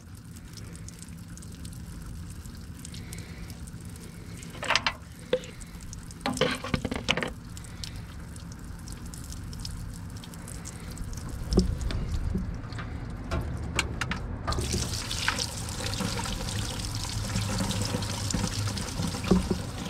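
Diesel fuel pouring in a stream from the tractor's fuel-tank petcock valve and splashing onto the engine below, now flowing after the clogged petcock was cleared of debris. A few brief knocks come in the first half, and the pour grows heavier and louder past the middle.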